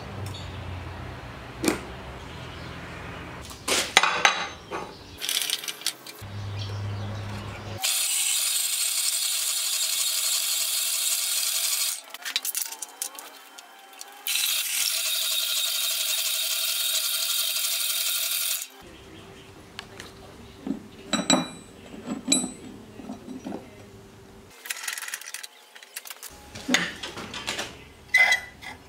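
Clinks and taps of a steel rule and square mild-steel bar handled on a bench, then a power hacksaw cutting the bar, running steadily for about ten seconds with a short stop partway through, the loudest part. Near the end, more clicks and knocks of steel pieces being set in a vice and a file laid across them.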